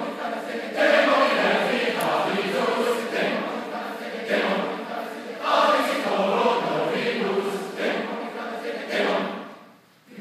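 Large mixed choir singing together, phrases swelling and easing, until a phrase dies away to a brief silence near the end.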